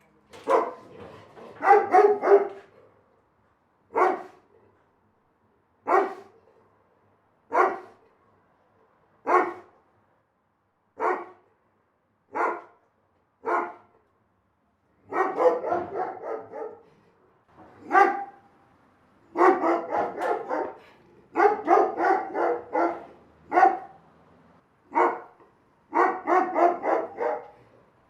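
A big dog barking: single deep barks every second and a half to two seconds, then quick runs of several barks in a row from about halfway through.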